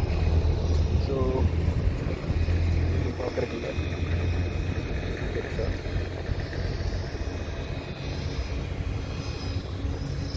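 Royal Enfield 350 single-cylinder motorcycle engine running with a Red Rooster aftermarket exhaust: a steady low engine drone with a broad rushing noise over it.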